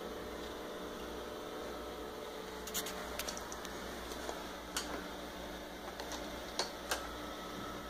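Steady low electrical hum with a faint hiss, and a handful of light clicks in the second half.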